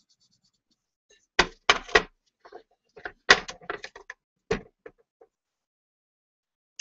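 A run of sharp knocks and clatters as ceramic bowls are moved and set down on a wooden tray. Three loud knocks come close together about a second and a half in, then a looser cluster follows a little later.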